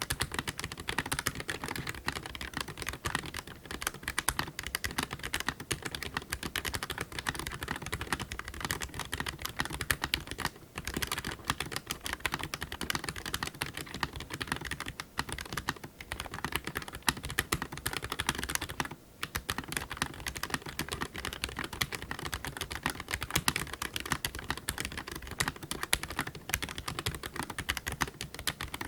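Eweadn MK100 mechanical keyboard with white switches being typed on continuously and fast, a dense stream of key clicks with brief pauses around ten and nineteen seconds in.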